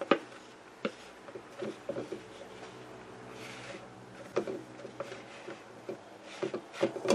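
Scattered knocks and scrapes of a utensil and hand against a plastic bowl as turmeric powder is tipped through a plastic funnel into a glass jar. The loudest knock comes at the very start, a soft hiss of sliding powder comes about halfway through, and a quick run of knocks comes near the end.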